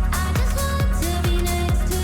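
Background electronic pop music with a steady kick-drum beat, about two beats a second, under held synth notes.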